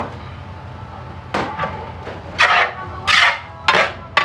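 Long metal stirring paddle knocking and scraping against a cast-iron pot while stirring chopped vegetables, about five strokes, each with a short metallic ring.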